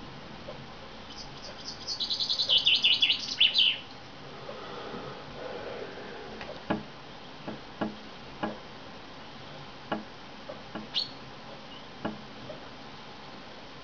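Male chaffinch singing one loud, descending trilled phrase, then tapping its beak against the window glass: about eight sharp knocks from about halfway in, some single and some in quick pairs, with one short high call among them.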